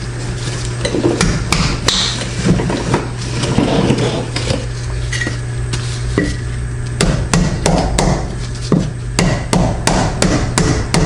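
Hand tools knocking and clicking against metal parts in irregular sharp taps, coming faster in the second half, over a steady low hum.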